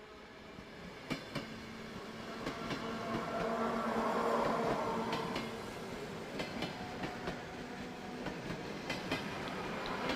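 Train running on rails: a steady rumble that grows louder, with the wheels clacking over rail joints in quick pairs every few seconds.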